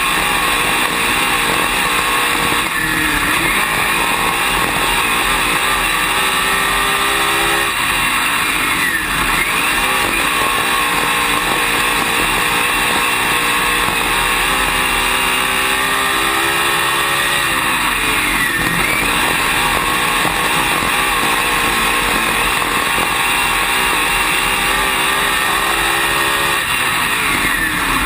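Dirt late model race car's V8 engine at racing speed, heard loud from inside the cockpit. Its revs dip and climb again about four times as the car lifts for the corners and accelerates back out.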